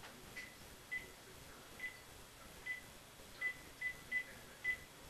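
Congo African grey parrot mimicking electronic beeps: a series of about eight short, high, single-pitched beeps at irregular intervals, coming closer together in the second half.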